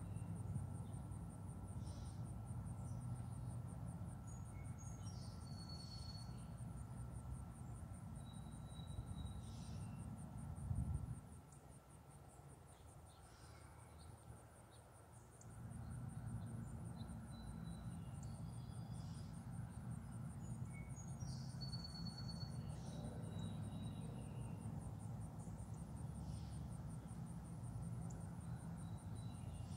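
Insects trilling steadily in a high, fast-pulsed buzz, with short bird chirps scattered through and a low rumble that drops away for a few seconds in the middle.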